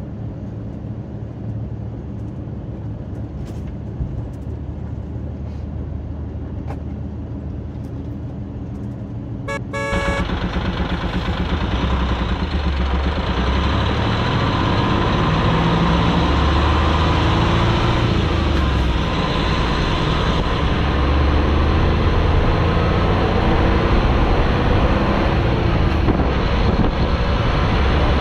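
Hino semi-truck's diesel engine running under way with road noise, heard inside the cab. About ten seconds in the sound jumps louder to wind, tyre and engine noise heard from atop the truck, the engine's pitch rising and falling.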